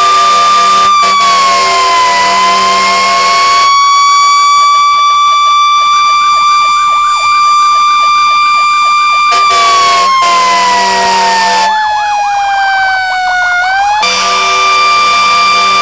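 Fire engine siren sounding a long, steady high tone that sags and recovers. In the second half it slowly falls in pitch for several seconds, then jumps back up. A second, wavering siren tone sounds beneath it in the middle, over a steady hiss.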